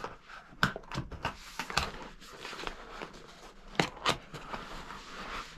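Handling sounds of items being packed back into a box: a scattering of light knocks and clicks with soft rustling, two sharper knocks a little before the four-second mark.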